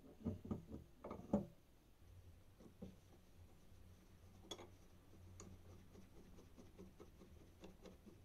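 Several light knocks of metal parts of a cast iron balance scale being fitted together, the loudest about a second and a half in. Then a flat screwdriver turns a small screw into the cast iron frame, making faint scattered ticks and scrapes.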